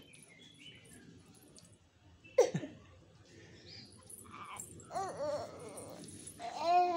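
A pet animal's short whining calls: one sharp falling cry about two and a half seconds in, then short arching calls around five seconds and again near the end, the last the loudest.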